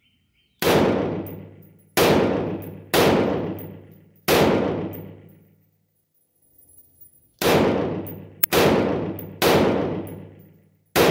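Eight single shots from a 5.56 AR-15 with a 16-inch barrel and an A2 flash hider, each sharp crack followed by a long ringing echo. Four shots come about a second apart, then after a pause of about three seconds four more.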